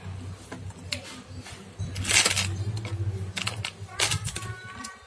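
Eating sounds: a plastic spoon clicking and scraping against food in a plastic takeaway container, with a louder rough scratch about two seconds in and another near four seconds, over a steady low hum.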